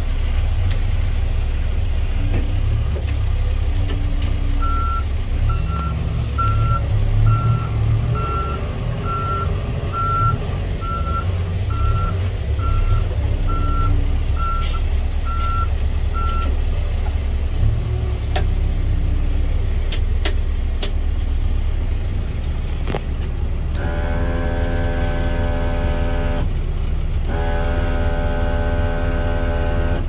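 John Deere 410K backhoe's four-cylinder diesel engine running steadily, heard from inside the cab. Its reverse alarm beeps about once a second for roughly twelve seconds while the machine backs up. Near the end, a long buzzing tone sounds twice with a short break.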